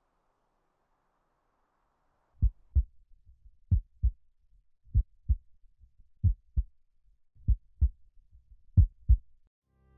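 Heartbeat sound effect: slow, deep double thumps (lub-dub), six beats about a second and a quarter apart, starting about two and a half seconds in.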